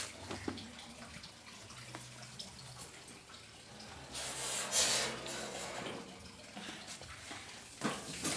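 Water running briefly into a sink, loudest for about a second and a half around the middle, with a few light knocks near the start.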